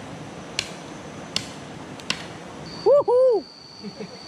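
A heavy chopping knife striking firewood: three sharp chops, less than a second apart. About three seconds in there is a loud, short, two-syllable voice-like call, and a steady high insect trill sets in.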